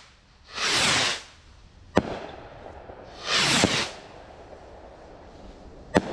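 Viking Space Seeker skyrockets launching one after another, each with a rushing hiss of about half a second, the second falling in pitch. Two sharp bangs of the rockets bursting, about two seconds in and near the end.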